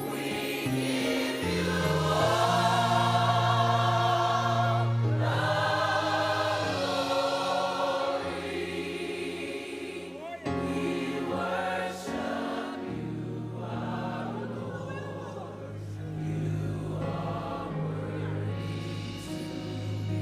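Gospel choir singing with instrumental accompaniment under steady low bass notes. The voices are loudest and fullest in the first half and fall back to softer passages after about ten seconds.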